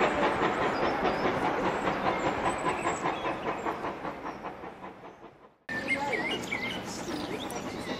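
A departing train's rhythmic beat, about four to five strokes a second, dying away into the distance; the sound breaks off suddenly about five and a half seconds in, and short high chirps follow over a quieter background.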